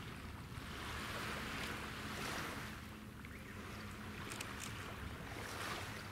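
Wind gusting over the microphone and waves washing along the shore, the rush swelling and easing every second or two. Underneath runs a faint steady low hum from the ferry and the tug working offshore.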